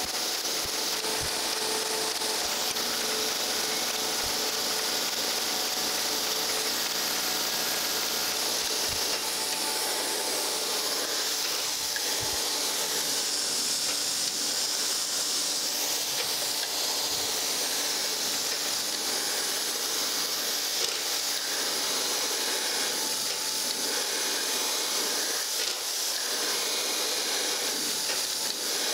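Surface grinder wheel grinding across the top face of a casting held on a magnetic chuck, a steady abrasive hiss of wheel on metal. The pass is sped up eight times, so the table strokes blur into one continuous hiss.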